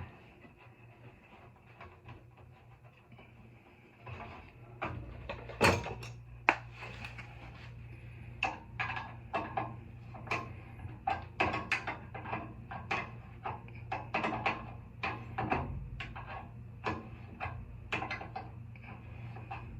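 Irregular clicks and knocks of tools and metal fittings being handled while a gas water heater's pilot assembly is reinstalled and hooked back up. A low steady hum starts about four seconds in.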